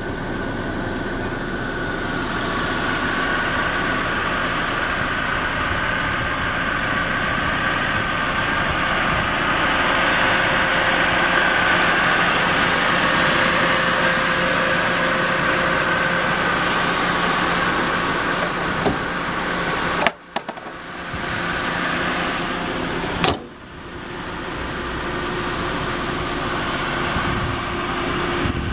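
A 2005 Dodge Neon's 2.0-litre four-cylinder engine idling steadily. Two sharp clicks come about three seconds apart, roughly two-thirds of the way through, and the sound dips briefly after each.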